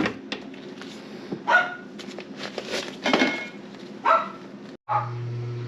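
A dog barking a few short times. About five seconds in the sound cuts, and a steady low hum begins.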